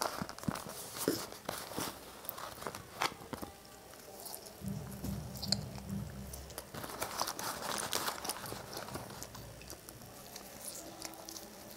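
A person eating McDonald's french fries quickly by hand: soft chewing and mouth sounds with scattered small clicks, and the paperboard fries carton crinkling as fries are pulled out.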